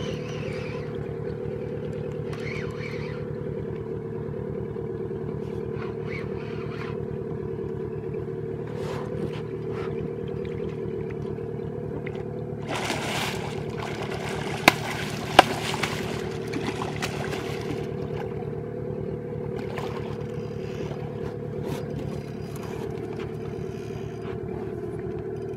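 Small petrol outboard motor running steadily on the boat. About halfway through there is a few seconds of louder noise with two sharp clicks.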